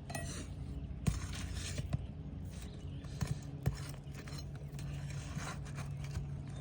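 Metal tool scraping and prying at asphalt roof shingles to work a roofing nail loose, with a few sharp clicks.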